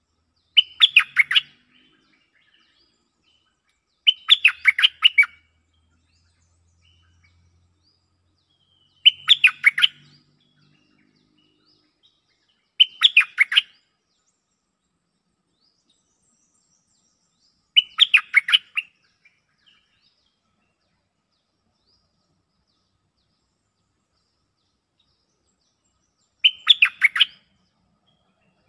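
Bulbul song: six short phrases of quick bubbly notes, each about a second long, separated by pauses of several seconds. These are territorial call exchanges used in decoy trapping.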